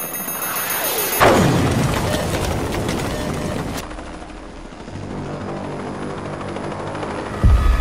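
A sudden loud boom about a second in, with a tone sweeping down after it, followed by a police helicopter's rotor beating overhead; near the end another sudden heavy low boom.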